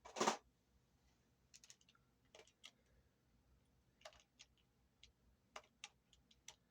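Removed guitar tuning machines being handled: a short louder clatter right at the start, then scattered light clicks and taps.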